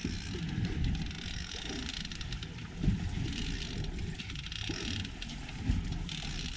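Fishing reel's gears and ratchet turning and clicking under the pull of a big striped bass on the line, with wind noise on the microphone.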